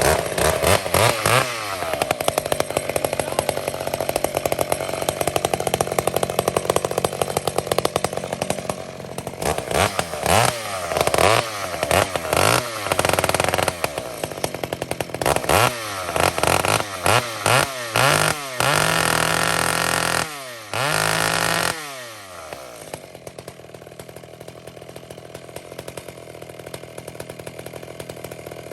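Two-stroke chainsaw with a 32-inch bar running: steady for several seconds, then revved up and down again and again, held at high speed twice for a second or two about two-thirds of the way in, then settling to a quieter, lower idle near the end.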